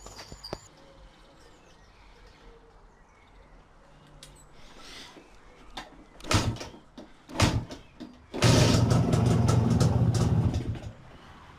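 BSA Bantam two-stroke single being kick-started on a freshly refitted Amal Concentric carburettor: two sharp kicks at the kickstarter about a second apart, then the engine fires about eight seconds in and runs loudly for roughly two and a half seconds before the sound drops away near the end.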